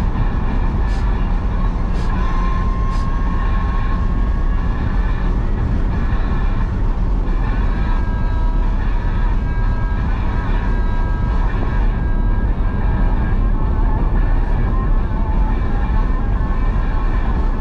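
Ferrari 488's twin-turbo V8 and tyres heard from inside the cabin while cruising steadily at highway speed: a constant low drone with road and wind noise.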